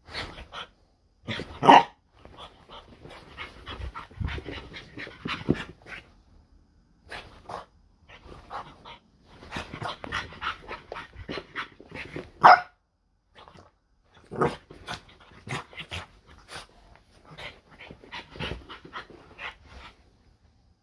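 French bulldog playing wildly in a fit of the zoomies: quick, busy panting and breathy noises, with two loud barks, one about two seconds in and one about twelve seconds in.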